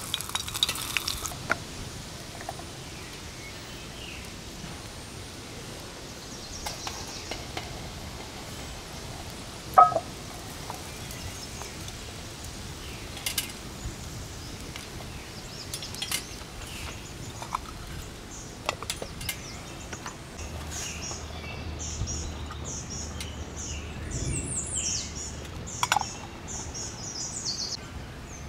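Scattered clicks and clinks of a utensil against a metal camp cooking pot, with one loud ringing clink about ten seconds in. A bird sings a run of repeated high chirps over the last third.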